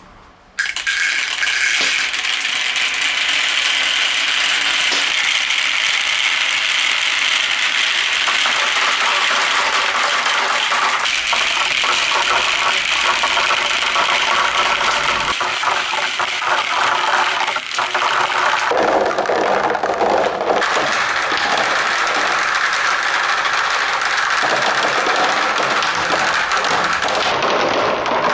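Many marbles rolling and rattling down the spiral slides of a marble run in a dense, continuous clatter that starts abruptly about half a second in.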